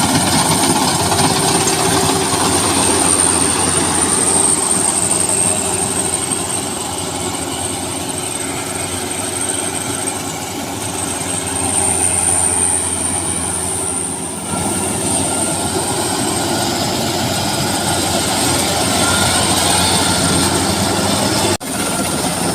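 Rice combine harvester running under load while cutting, a steady engine drone with a high steady whine above it; the sound cuts off for an instant near the end.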